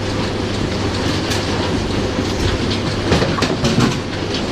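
Bowling pinsetter running through its cycle: steady machine running noise, with a run of clattering knocks about three seconds in.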